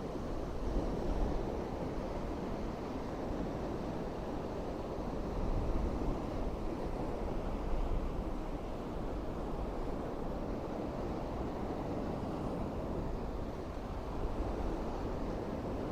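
Waves of the Irish Sea lapping and washing on the shore as a steady rush that swells and eases every few seconds, with wind rumbling on the microphone.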